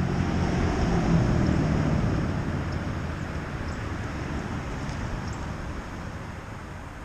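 A passing motor vehicle: a low engine hum and rushing noise that swells about a second in, then slowly fades away.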